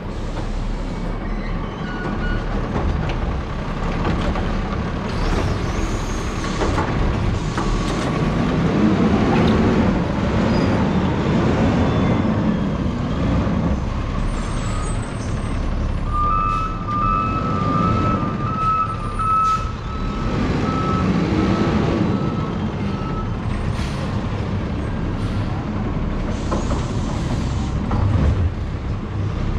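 Garbage truck's diesel engine running and revving up and down as it moves along the street. Its reversing alarm beeps for several seconds past the middle, and there are a few short air hisses.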